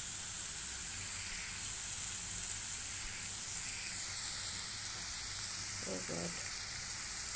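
Chopped onions frying in hot oil in a kadai, giving a steady sizzle as they cook toward pink and soft.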